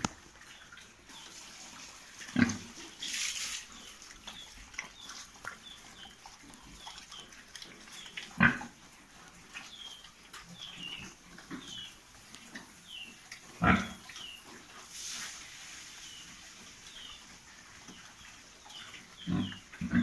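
Pigs at feed, giving four loud, short grunts spaced several seconds apart.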